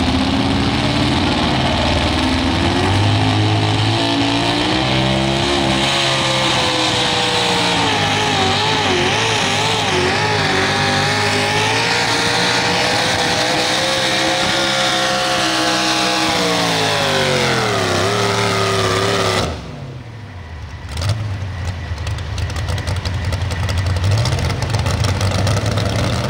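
Two-wheel-drive pulling truck's engine at full throttle under load down the track. Its pitch climbs, then holds high and wavers, then falls away as the pull ends. About three-quarters of the way through the sound drops off suddenly, leaving a lower, quieter engine note that rises a couple of times.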